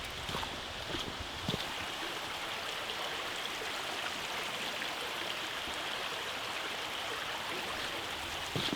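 Running water of a woodland stream rushing steadily, with a few footsteps on the path in the first second and a half.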